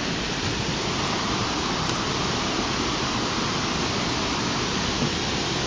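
Steady rushing of water pouring over a waterfall, swollen and running heavy after prolonged rain.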